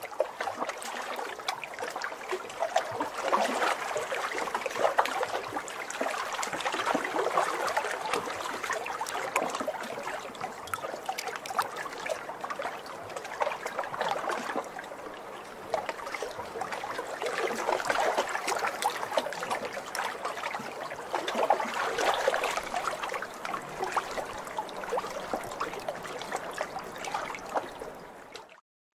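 Sea water lapping and washing at the shore, a fizzing wash that swells and eases every few seconds as small waves come in. It cuts off suddenly near the end.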